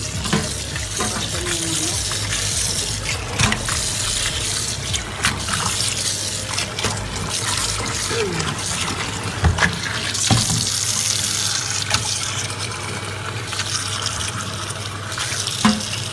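Tap water running steadily into a metal strainer of raw chicken pieces in a stainless steel sink, with a hand turning the pieces in the water. A few sharp clicks and knocks against the metal come now and then.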